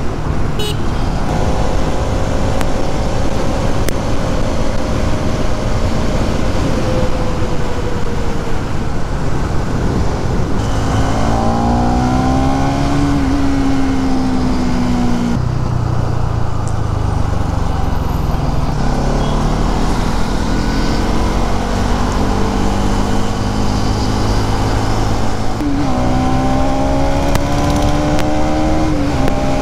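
Bajaj Pulsar NS200's single-cylinder engine heard from the rider's seat on the move, its pitch climbing under throttle around the middle and again near the end, with sudden jumps in pitch where gears change. A steady rush of wind and road noise runs underneath.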